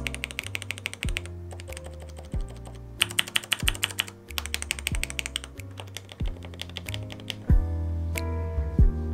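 Mechanical keyboard switches in a small clear-acrylic switch tester, pressed rapidly in two quick runs of clicks, one at the start and another about three seconds in, over background music.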